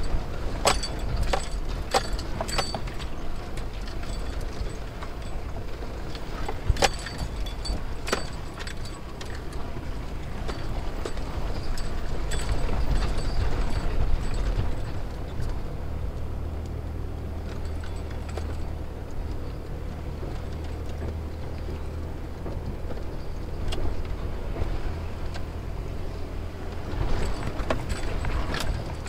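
Car engine running at a low, steady drone while driving over a rough unpaved track, with sharp knocks and rattles from the bumps, most of them in the first several seconds and again near the end.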